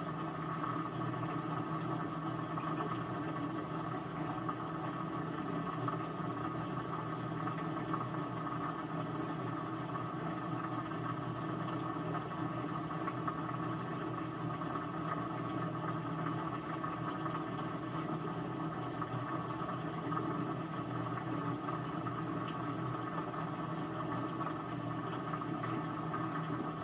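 A steady mechanical hum, even and unchanging, with a constant drone and a faint hiss over it.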